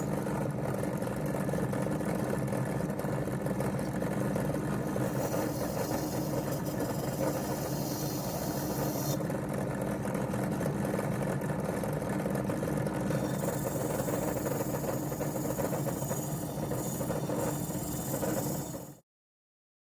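Small electric motor tool running steadily as a brush scours tarnish off brass blowtorch parts. A high hiss comes and goes a few times, and the sound cuts off abruptly near the end.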